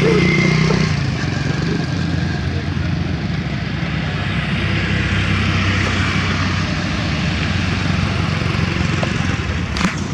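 Steady engine noise of a passing motor vehicle over a constant hiss, with a low hum that fades about a second in. A sharp click comes just before the end.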